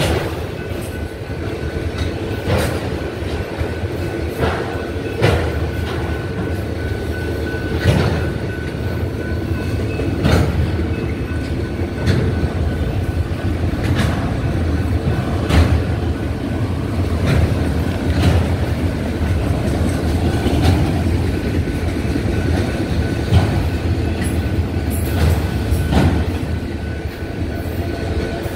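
Freight train of enclosed autorack cars rolling past: a steady rumble of steel wheels on rail, with a sharp clack about every two and a half seconds as the wheels cross a rail joint.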